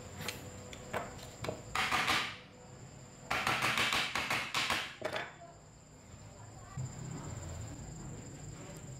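Screwdriver driving screws into an electric chainsaw's metal motor housing: scattered clicks and scrapes, then a rapid run of clicks lasting nearly two seconds from about three seconds in.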